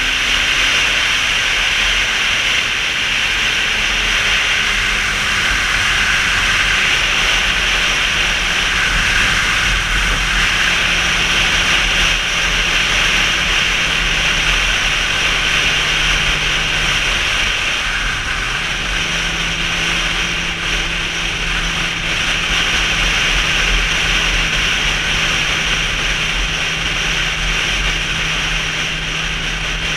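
Sport motorcycle running at a steady cruise, heard from an onboard camera: a steady engine hum under loud rushing wind and road noise. About halfway through the engine note dips for a few seconds, then comes back up.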